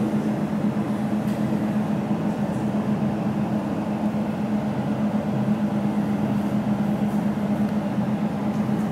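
Jewelry laser welding machine powered on and standing by, giving a steady hum with one strong low tone.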